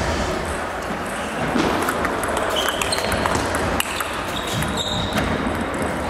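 Table tennis rally: the ball clicking off the bats and table in quick succession, over the steady background noise of a large sports hall, with a few short high squeaks mixed in.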